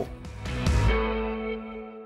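Short music sting: a chord with a low hit under a second in, its notes ringing on and slowly fading away.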